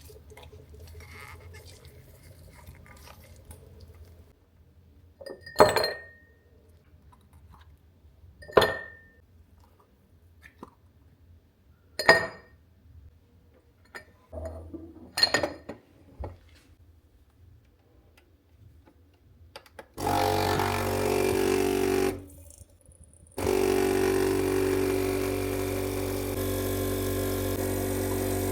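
Four separate ringing clinks of dishes being set down, a few seconds apart. Then, about two-thirds of the way in, a loud steady hum of an electric appliance motor starts, cuts out briefly, and starts again.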